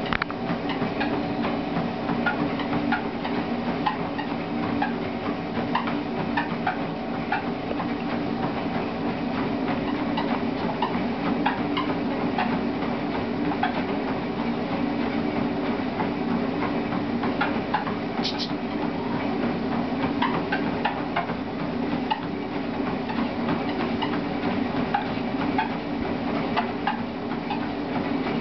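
Motorized treadmill running steadily at 6 km/h, its motor and belt giving a constant hum, with the light irregular ticks of a dog's paws stepping on the moving belt.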